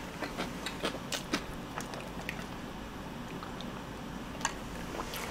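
Close-miked chewing of crispy fried chicken: crisp crunching clicks for the first two seconds or so, then quieter, with one more click near the end.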